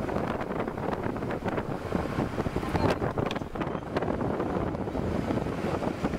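Wind buffeting the microphone: a steady rough rushing with frequent crackling gusts.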